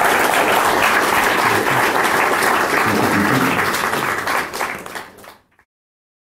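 Audience applauding, dense clapping that fades out about five seconds in.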